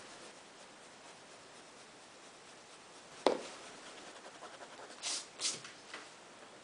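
Pencil drawing on sketchpad paper: a sharp tap about halfway through, then a run of short scratchy pencil strokes, two of them louder shortly before the end.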